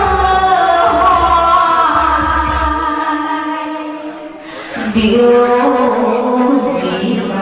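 A woman singing into a microphone over a backing track, holding long notes; the music dips briefly about four seconds in before she starts a new phrase.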